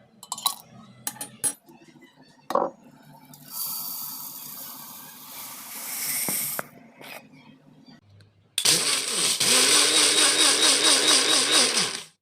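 A few sharp knocks and a few seconds of dry, rattling hiss, then an electric kitchen mixer grinder running loudly for about three and a half seconds with a wavering hum, grinding urad dal, before cutting off suddenly.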